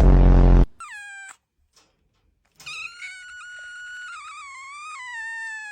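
A loud, low buzzing burst right at the start. Then a cat gives a short meow that falls in pitch, and after a pause a long drawn-out yowl of about three and a half seconds that slowly sinks in pitch.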